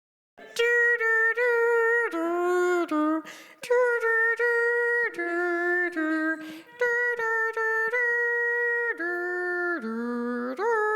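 Wordless a cappella singing: a run of held notes, each about a second long, stepping up and down with short breaks between them, starting about half a second in. Someone afterwards calls it angelic.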